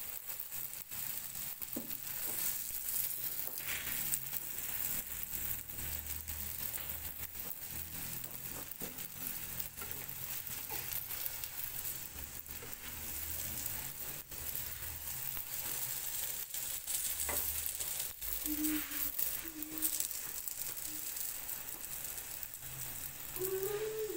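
Msemen (square Moroccan layered flatbread) frying in a lightly oiled pan: a steady sizzle with scattered small crackles.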